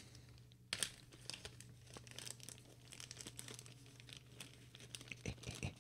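Clear plastic zip-lock bag crinkling as it is handled, a faint run of irregular crackles that starts just under a second in.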